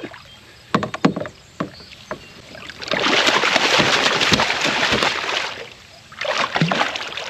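A hooked catfish thrashing and splashing at the surface beside the kayak for about three seconds, starting about three seconds in, after a few sharp knocks of tackle against the boat.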